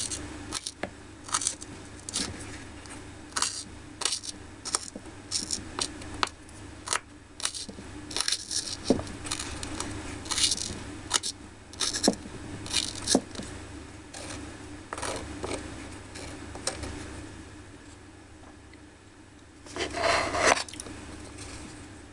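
Tiny knife tapping and scraping on a miniature wooden cutting board as something is chopped fine, in sharp irregular clicks. Near the end comes a longer scrape of about a second.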